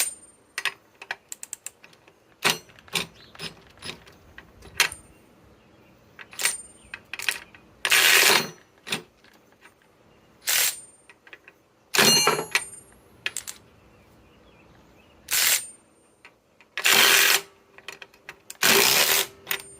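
Kobalt right-angle cordless impact wrench in reverse, hammering in six short bursts of under a second each against a bolt torqued to 65 foot-pounds, with scattered clicks and knocks of handling between the bursts.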